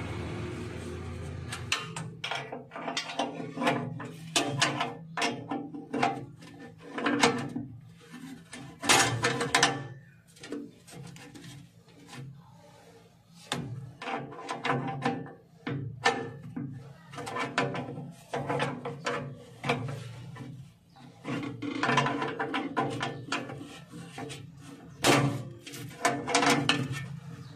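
Irregular clatter of clicks and knocks from tools and parts being handled during hands-on repair work, over a steady low hum.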